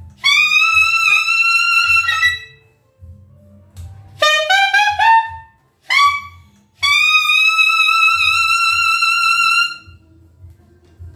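Saxophone playing a slow melodic phrase: a long note bent at the start, a quick run of rising notes in the middle, then one long held note that stops near the end.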